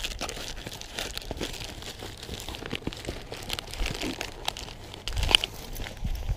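Rustling, scuffing and small clicks of clothing and fishing gear being handled close to a chest-worn camera, with a low rumble underneath and a louder bump about five seconds in.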